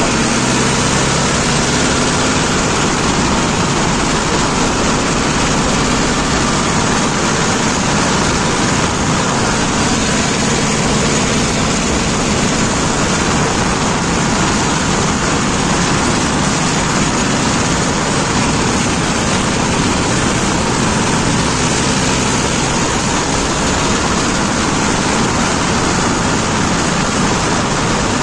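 Mahindra Yuvo 585 DI tractor's four-cylinder diesel engine running steadily as the tractor drives along, under a constant rushing noise.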